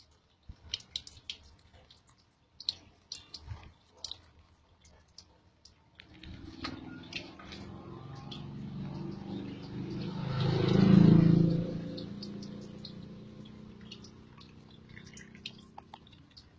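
Scattered light clicks and taps, then a motor vehicle's engine hum at a steady pitch that swells to a loud peak and fades away over about ten seconds, as a vehicle passes.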